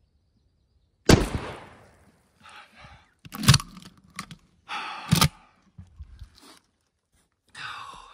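A shotgun firing once about a second in: a single loud blast that fades over most of a second. It is followed by several sharp knocks and rustling as the barrel-mounted gun is jerked about.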